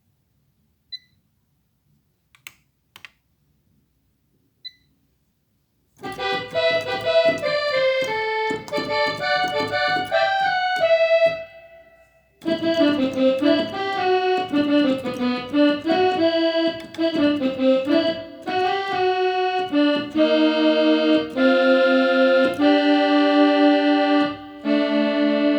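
Korg Triton synthesizer playing an accordion-like patch: a fast melody of quick notes starts about six seconds in, stops briefly near the middle, then resumes with more runs and repeated chords. Before the playing there are a few short, high beeps and faint clicks.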